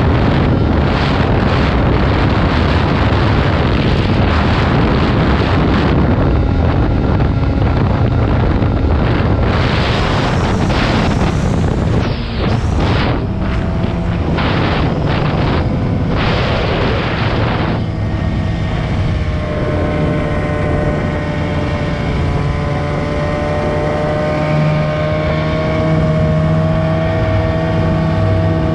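Old snowmobile's engine running at speed under heavy wind buffeting on the microphone. About 18 seconds in, the wind eases and the engine's steady whine comes through clearly, slowly rising in pitch.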